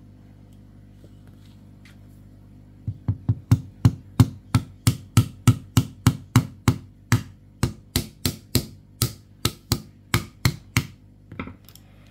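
Umarex T4E HDP .50 pistol's mechanism being worked by hand: a quick run of sharp metallic clicks, about four a second, starting about three seconds in and stopping near the end, with a couple of fainter clicks after.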